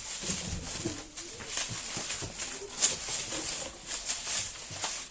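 Packing material rustling and crinkling in irregular strokes, with a few light knocks, as it is pulled off drop-tested plates to check them for breakage.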